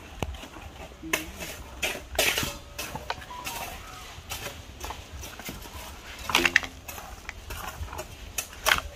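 Scattered clinks and knocks, irregular and short, the loudest about six and a half seconds in and again near the end, with a brief pitched cry about six and a half seconds in.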